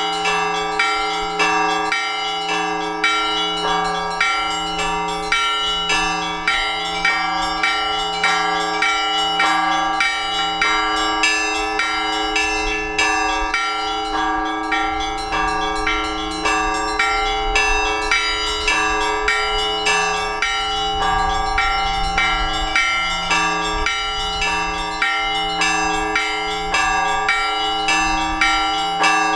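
Orthodox church bells rung together in a peal, calling to the all-night vigil. A low bell is struck about once a second under fast, rhythmic strikes of several smaller bells, their tones ringing on over one another.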